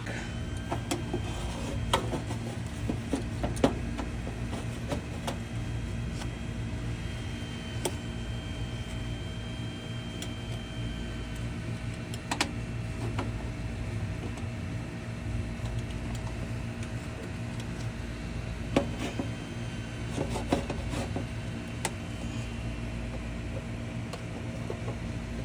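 A steady low mechanical hum runs throughout, with scattered sharp clicks and knocks from hand work on the unit's parts and wiring.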